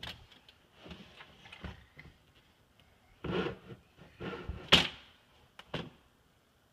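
Wooden latch board knocking and scraping against a wooden shelf as it is pulled out and set down: a handful of separate knocks and short scrapes, the loudest just under five seconds in.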